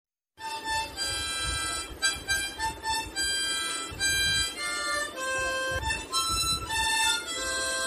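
Harmonica played solo, a melody of held notes that changes pitch every half second or so, starting about half a second in.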